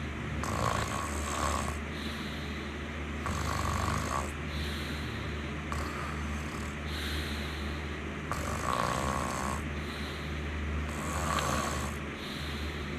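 Someone snoring: a rasping breath that repeats about every two and a half seconds, five times, over a steady low hum.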